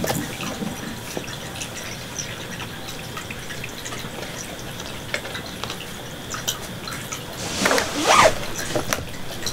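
Light clicks and taps of a plastic ball-track tower toy being nudged across a floor mat by a cat's nose, with a louder scrape or rattle about eight seconds in.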